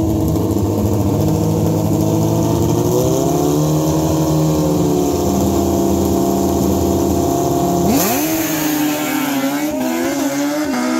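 Two drag-racing sport bikes held at raised revs on the starting line, then launching about eight seconds in: the engines climb sharply in pitch and drop back twice as they shift up.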